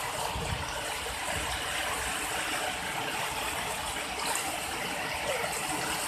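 Rocky stream rapids, water rushing and churning over and between boulders in a steady, even rush.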